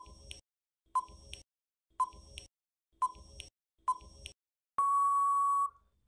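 Quiz countdown-timer sound effect: five short beeps a second apart, then one longer steady beep signalling that time is up.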